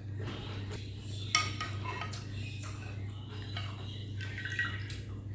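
Eating utensils clinking and knocking against a bowl of noodle soup during a meal, in a string of short irregular clicks, the sharpest about a second in. A steady low hum runs underneath.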